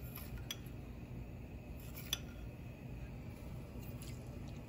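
A few faint clinks of a metal spoon against glass spice bowls as salt is scooped and tipped into a steel pressure cooker, over a low steady hum.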